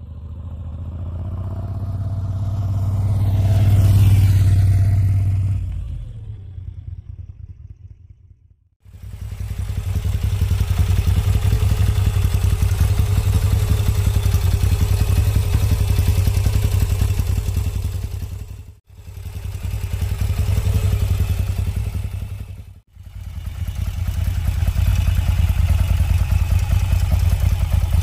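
Moto Guzzi V7 Special Edition's transverse V-twin with an Arrow exhaust passing by on the road, growing loudest about four seconds in and then fading away. It is then heard idling steadily, close to the silencer, with two brief cut-outs.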